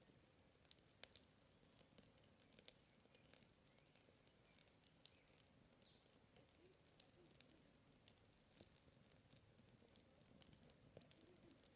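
Faint wood campfire crackling, with irregular sharp pops and snaps. A single short bird chirp about halfway through.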